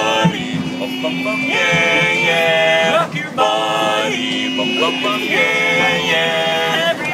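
Barbershop quartet of men singing a cappella in close harmony, holding chords of one to one and a half seconds each with short breaks between them over a held low bass note.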